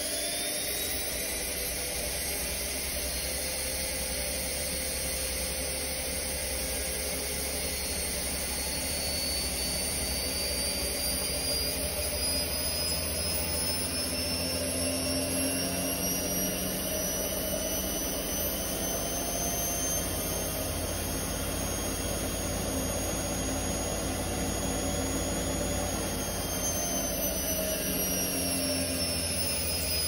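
Zanussi ZWF16070W1 front-loading washing machine on its spin cycle: a high motor whine climbs slowly as the drum speeds up, then falls away about four seconds before the end as the spin slows. A low hum runs underneath.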